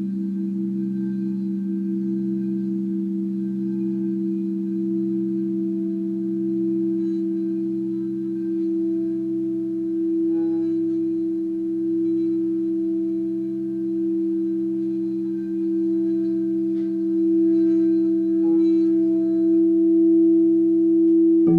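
White frosted crystal singing bowls holding several low steady tones at once, sung by a wand circled around the rim of a bowl; the tones throb slowly and swell louder in the second half.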